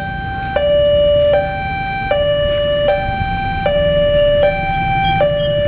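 Railway level-crossing warning alarm sounding its two-tone electronic signal, alternating steadily between a lower and a higher tone about every three-quarters of a second.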